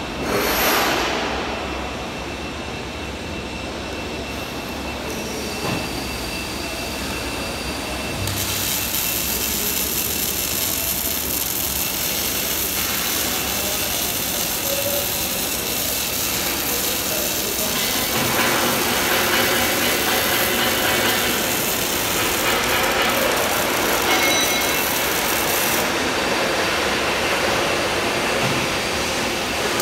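MIG welding arc sizzling steadily, starting about eight seconds in and stopping a few seconds before the end. A brief loud burst of noise comes about half a second in.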